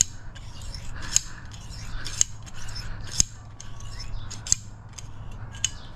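Safety wire pliers twisting safety wire: the spiral twister is worked in repeated strokes, with a sharp metallic click about once a second and a light rasp of metal between.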